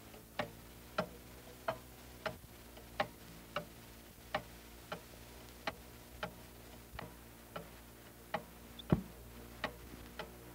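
Pendulum wall clock ticking evenly, about one and a half ticks a second, with one heavier low knock near the end.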